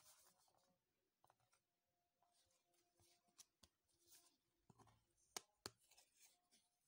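Very faint handling noise: soft rustles and light taps as a picture frame tied with satin ribbon is turned over in the hands, with two sharper clicks a little past halfway.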